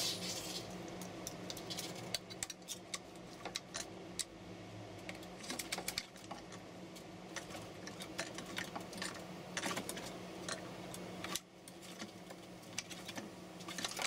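A crow's beak pecking and tapping at a wooden board and a hanging string-and-clip puzzle contraption: an irregular run of sharp clicks and knocks, some in quick clusters.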